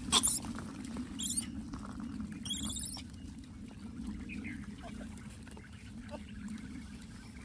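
A few short high-pitched animal squeaks and a couple of sharp clicks over a steady low hum, amid a troop of gray langurs feeding.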